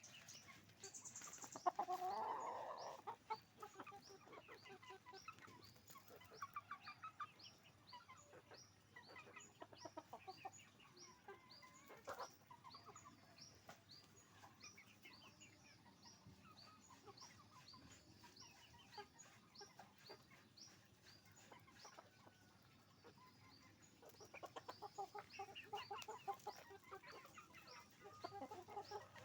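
A flock of chickens, hens and roosters, clucking continuously with many short overlapping calls. There is one loud squawk about two seconds in and a busier burst of clucking near the end.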